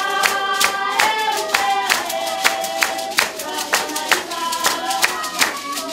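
A group sings a traditional Basarwa (San) dance song to sharp, steady hand clapping, about two and a half claps a second.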